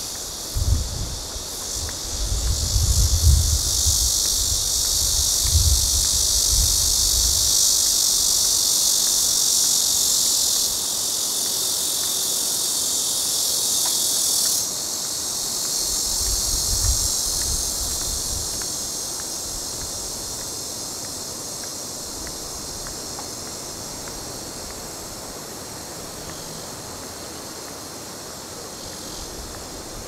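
A dense, steady, high-pitched chorus of night insects, shifting abruptly about ten and fifteen seconds in as some singers drop out. Low rumbles sit under it in the first several seconds and again around seventeen seconds.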